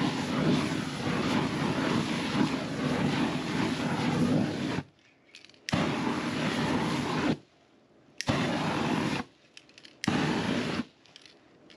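Aerosol spray from a can lit into a jet of flame, running as a steady roar for about five seconds, then in three shorter blasts, each cut off sharply.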